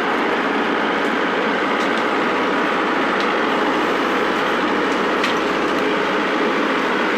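Tractor engine running steadily, with a few faint sharp clicks over it.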